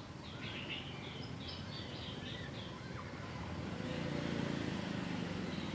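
A bird chirping a quick run of short high notes over steady background noise, followed by a low rumble that swells up in the second half.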